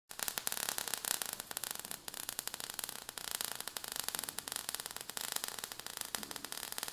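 Faint crackling, hissing sound effect of falling sparks, made of many small irregular clicks.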